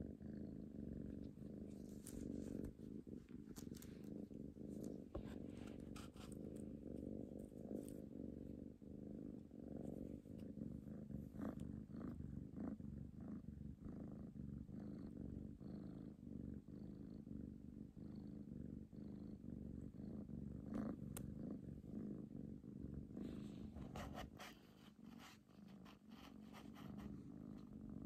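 A cat purring steadily and close up while dozing contentedly, held against the chest inside a fleece jacket, with a few faint rustles and clicks. The purring eases off briefly about 24 seconds in, then resumes.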